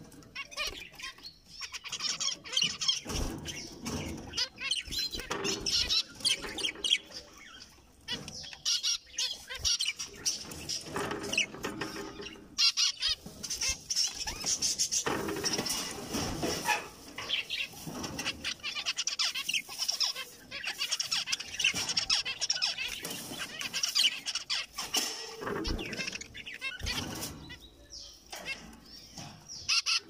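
Several caged zebra finches calling, many short calls one after another throughout, mixed with wing flutters as the birds move about.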